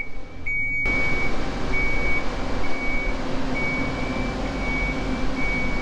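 Mobile boat hoist (travel lift) beeping its warning beeper about twice a second while its diesel engine runs with a low rumble, the machine noise growing louder about a second in as it moves with a catamaran hanging in its slings.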